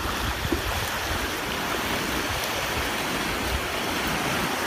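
Small waves washing in over a sandy shoreline: a steady wash of shallow surf.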